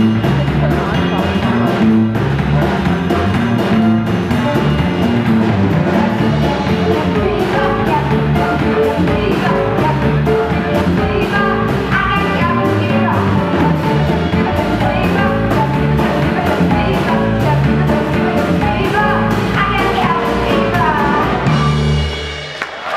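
Live jazz band playing an instrumental passage of a swing-style song, with drum kit, bass and a melodic lead line over it. The music falls off near the end.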